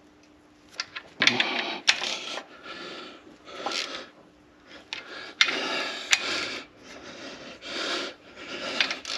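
Hand ratchet wrench clicking in about eight short strokes, starting about a second in, as bolts on a Caterpillar 3406B's aftercooler housing are run in and tightened.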